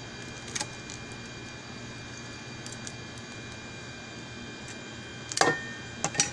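A steel cleaver knocking on a plastic cutting board while a fish is cleaned: a light clack about half a second in, a louder knock a little past five seconds, and two quick clacks near the end as the blade is set down on the board. A steady background hiss and hum runs underneath.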